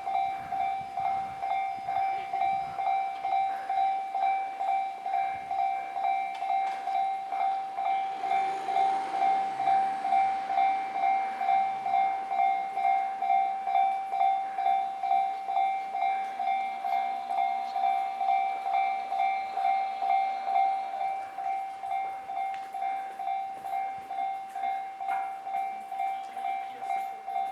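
Japanese railway level-crossing warning bell ringing, an even electronic ding repeated a little over twice a second. A train passes about eight seconds in, its running noise swelling under the bell for a few seconds.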